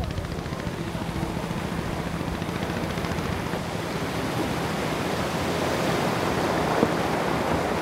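Steady rushing noise, slowly getting a little louder, with one faint knock near the end.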